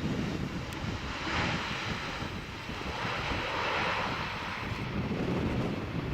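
Jet engines of a Boeing 777 freighter, a rushing whoosh that swells twice, over strong wind buffeting the microphone with a low gusty rumble.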